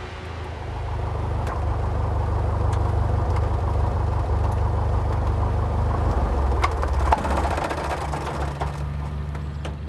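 Light aircraft's piston engine and propeller running close by as a steady low drone. It swells in the first second or two and eases off about seven seconds in, with a few sharp clicks near the end.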